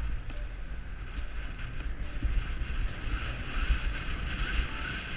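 Wind buffeting a helmet-mounted action camera's microphone as a downhill mountain bike rolls fast over cobblestones, with an uneven low rumble from the tyres on the stones.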